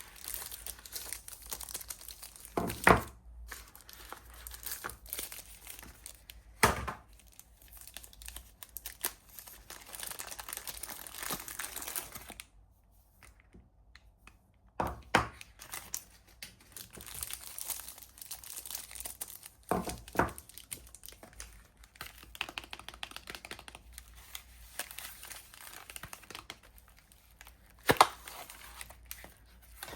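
Soap wrappers being unwrapped by hand, crinkling and tearing, with several sharp knocks scattered through and a short quiet pause about halfway.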